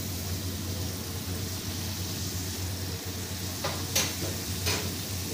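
Potato fries deep-frying in hot oil in a wok, sizzling steadily as a wire-mesh skimmer stirs them. Near the end the skimmer clinks sharply against the pan three times, the middle clink the loudest.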